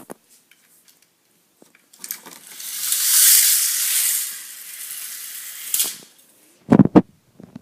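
Toy K'nex roller coaster car running down its plastic track: a rushing rattle that builds, peaks and fades over about four seconds, then a few sharp knocks near the end.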